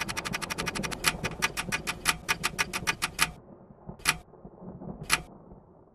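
Clock ticking sound effect. The ticks run fast at first, about ten a second, then slow to about six a second and stop a little over three seconds in. Two single ticks follow about a second apart, and a low rumble under the fast ticking ends when it stops.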